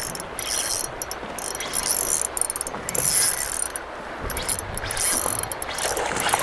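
Spinning reel being cranked against a hooked fish as it is played in on a light casting rod. Its mechanical whirring comes in uneven spurts with short pauses.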